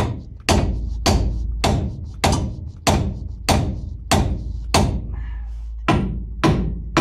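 Hammer blows on steel, about one and a half a second with a brief pause near the end, each with a short metallic ring: beating a rusted tie rod end loose from the steering arm of a 1999 Ford F150.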